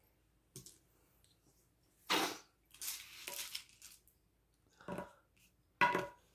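A person coughing and clearing their throat: a sharp cough about two seconds in, a raspy breath after it, and two more short coughs near the end.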